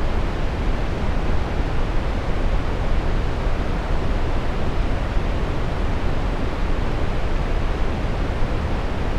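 Steady brown noise: an even, deep rushing hiss with most of its weight in the low end and the highs rolled off, unchanging throughout.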